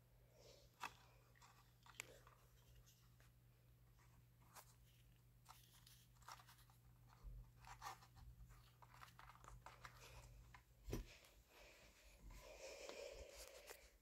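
Faint handling noises from a USB cable and a small fan control box being held and plugged in: scattered sharp clicks, the loudest about a second in, two seconds in and near the end, and a short stretch of rubbing and rustling.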